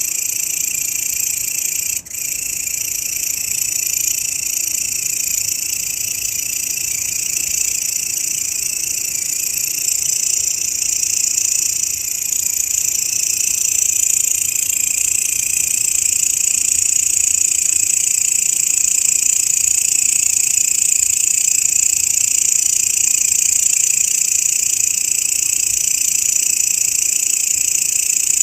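Grasshopper stridulation: a continuous, high-pitched buzzing trill, used as training audio for songbirds, with a brief break about two seconds in.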